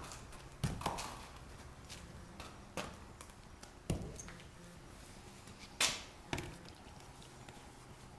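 A horse's hooves knocking on a concrete barn floor: about six separate, sharp steps at uneven intervals as the horse shifts its feet.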